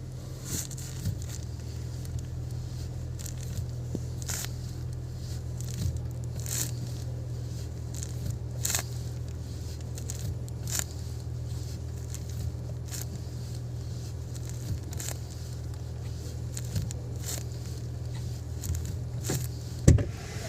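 Volkswagen clutch pedal worked repeatedly, a short sharp sound about every two seconds, over a steady low hum like an idling car engine.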